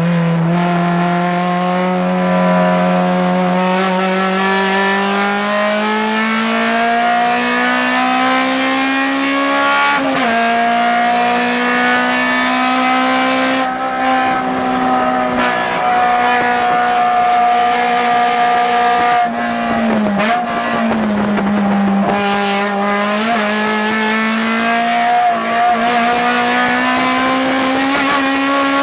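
Acura RSX Type S race car's 2.0-litre four-cylinder engine heard from inside the cabin, running hard with its pitch climbing slowly through long pulls. The pitch dips sharply about ten seconds in, several times around twenty seconds in, and again at the end.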